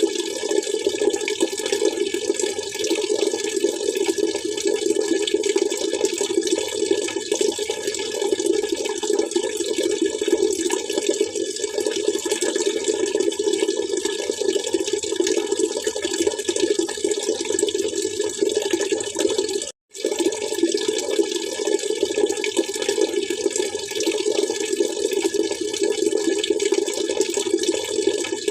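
Water splashing and trickling steadily, a dense, even rush with no change in rhythm. The sound drops out for a split second about twenty seconds in, then resumes unchanged.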